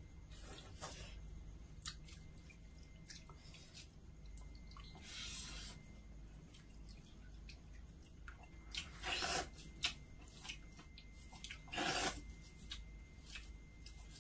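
Hand-eating of water rice and fish curry from plates: faint wet squishing, chewing and small clicks of fingers against the plate, with a few louder noisy bursts about five, nine and twelve seconds in.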